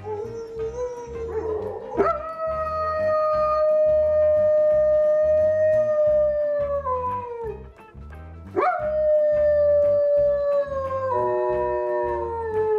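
German Shepherd howling in long, drawn-out notes. A held howl starts about two seconds in and falls away after some five seconds, and a second one begins near nine seconds in. Background music with a steady beat plays underneath.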